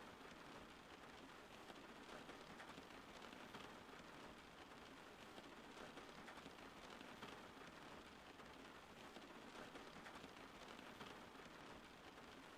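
Steady rain falling, faint and even, with a fine patter of individual drops.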